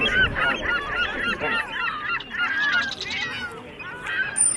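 A dense chorus of birds calling at once: many short, squawking calls overlapping.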